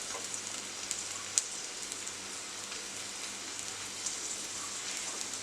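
Oil sizzling steadily in a pan under a filled wheat-flour tortilla wrap frying on one side. The hiss starts abruptly and holds even, with one faint tick about a second and a half in.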